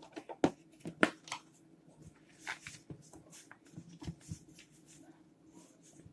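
Hands working sticky fluffy slime off a plate: irregular wet clicks and squelches. The two sharpest pops come about half a second and a second in, with softer ones after.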